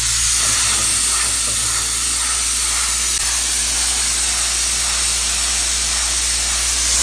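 Steam hissing steadily out of the pressure valve of a large aluminium pressure cooker, over a steady low hum.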